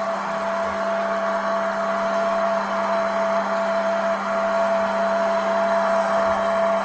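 Hot-air popcorn machine running: its fan and heater blowing a steady whir with a constant low hum and a higher steady tone, as the kernels are tumbled in the hot air.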